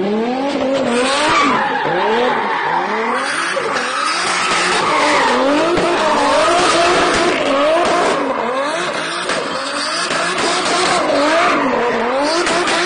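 Single-turbo 2JZ straight-six in a drifting BMW E36, its revs rising and falling over and over as the throttle is worked, over the steady hiss of the rear tyres spinning and skidding.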